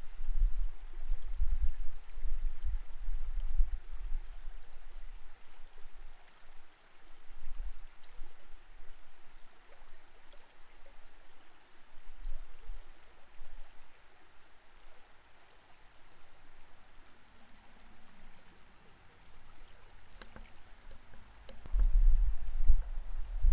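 Creek water flowing, heard through an underwater camera as a steady, muffled hiss. Low rumbling thumps come in the first few seconds and again near the end.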